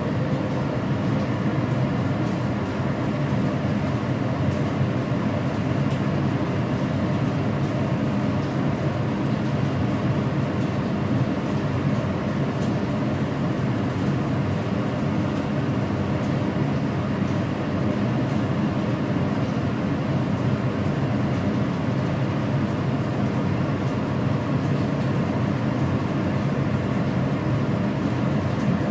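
Gas stove ring burner running on a high flame: a steady, unbroken low roar.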